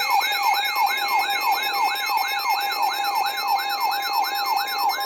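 Electronic siren-style emergency alert tone, a fast yelp that falls in pitch about four to five times a second over steady high tones. It is the attention signal that comes before a broadcast flash flood warning.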